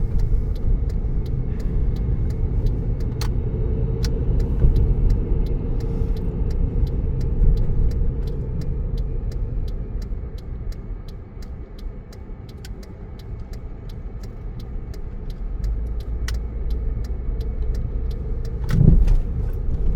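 Car driving, heard from inside the cabin: a steady low rumble of engine and road noise that eases a little about halfway through and builds again, with a brief low thump near the end.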